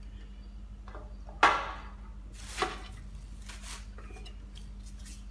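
Stainless steel bowl on a kitchen scale knocking and clanking as a plastic bag of grain feed is lifted out of it and the bowl is handled, with the plastic bag rustling. The sharpest knock comes about one and a half seconds in, with softer knocks and rustles after.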